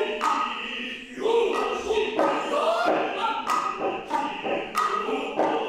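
Noh performance music: the jiutai chorus chanting in unison over the hayashi ensemble, with sharp drum strikes landing roughly every second.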